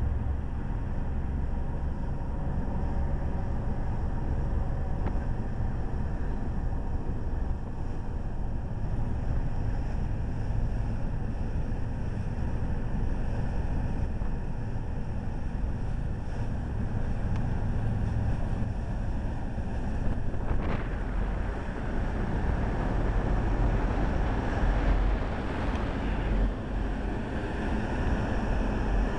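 Fireboat's engines running steadily under way at one-third speed, with the rush of the wake along the hull and wind buffeting the microphone.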